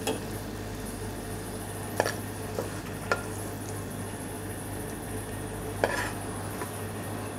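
A stainless-steel ladle clinks and scrapes against a ceramic plate a few times as the chicken is served onto it, the loudest clinks about two seconds in and near six seconds. A steady kitchen hiss and low hum run underneath.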